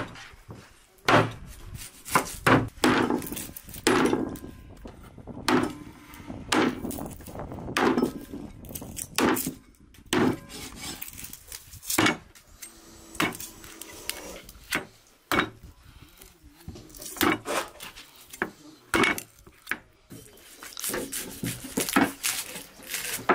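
Chopping on wood: irregular sharp knocks, about one or two a second, with short pauses between runs of strokes.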